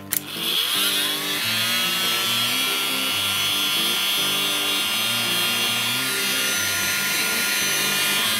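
A Sparky Professional heat gun clicks on, and its fan spins up with a rising whine that settles into a steady whir and a rush of hot air.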